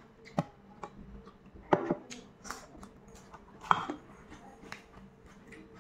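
Close-miked chewing of crisp cucumber slices: irregular wet crunches and mouth clicks, the loudest about two seconds in and near four seconds.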